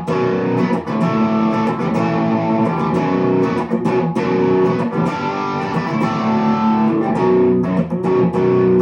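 Schecter Sun Valley Super Shredder electric guitar played through a TX-WATT tube hybrid amp with a little overdrive, picked notes and chords ringing on with a fresh pick attack every second or so.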